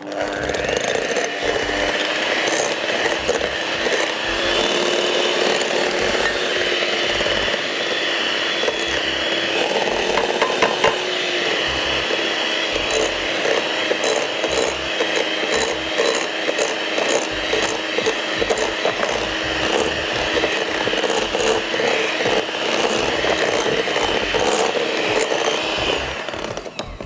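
Electric mixer running steadily at speed, creaming butter and sugar together for a cake batter, switched off near the end.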